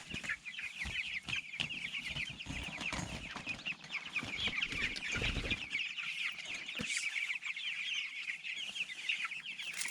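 A flock of young Cornish Cross meat-bird chicks peeping: many short, high, falling chirps overlapping without a break. Scattered knocks and rustling are heard under the peeping through the first half or so.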